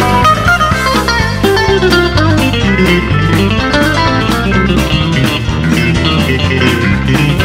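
Background music: a guitar-led blues-rock track with a steady beat.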